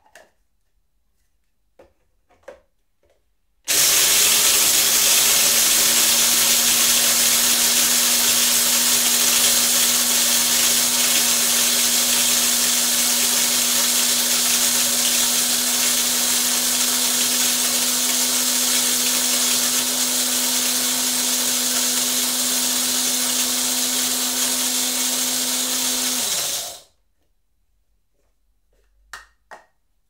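Electric coffee grinder running steadily, grinding a load of coffee beans with a constant motor hum under a loud whirring hiss for about 23 seconds, the hum falling in pitch as the motor is switched off and spins down. A few light clicks and taps come before it starts and after it stops.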